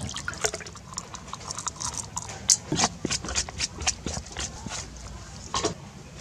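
A spoon clicking and scraping against a metal mixing bowl while stirring flour and seasoning into batter, in quick uneven taps that come thickest in the middle.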